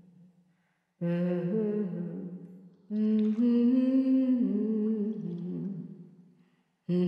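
A voice humming a slow melody in long held notes that step up and down in pitch. It comes in phrases that start abruptly and fade away: one after about a second, a longer one from about three seconds, and a new one starting near the end.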